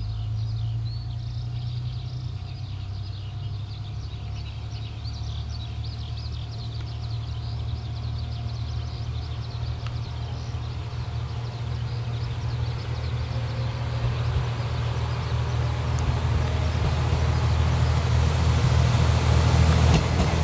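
Kanto Railway KiHa 5000-series diesel railcar No. 5002 approaching, its engine a low steady sound that grows steadily louder. Japanese tree frogs call in quick croaking runs over it, plainest in the first half before the engine drowns them.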